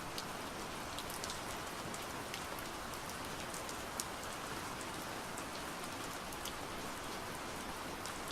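Steady gentle rain falling, an even hiss with scattered sharp drop ticks.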